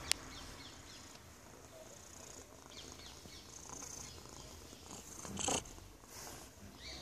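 Domestic cat purring steadily while being stroked on the head, with a brief louder rustle about five and a half seconds in.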